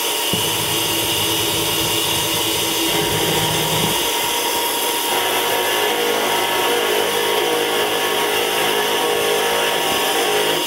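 Tormach PCNC 1100 CNC mill rough-milling a pocket in a steel block: a steady spindle whine and cutting noise, with coolant spraying onto the cutter.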